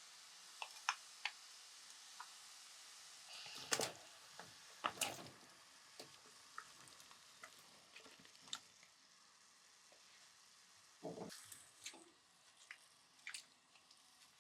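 Quiet kitchen cooking sounds: a faint steady sizzle with scattered light clicks, and a few louder clatters of utensils about four, five and eleven seconds in.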